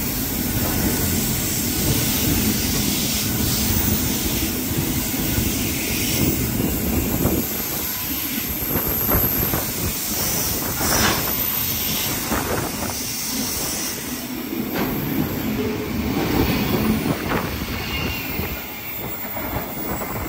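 Container freight train's wagons rolling past close by: a steady rumble and clatter of wheels over the track, with brief high wheel squeals here and there. It fades as the last wagon goes by near the end.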